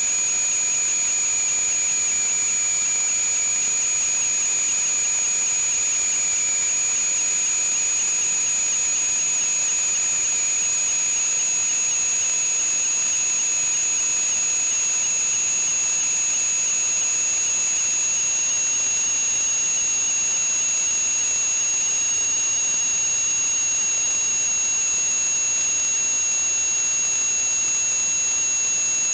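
A steady hiss with high whistling tones running over it, the lowest whistle slowly rising in pitch.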